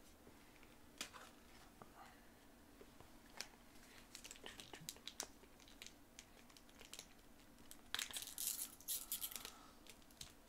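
Foil wrapper of a Digimon TCG booster pack being torn open and crinkled by hand, after a few light clicks and scrapes of cards being handled; the loudest crinkling comes in a cluster about eight seconds in.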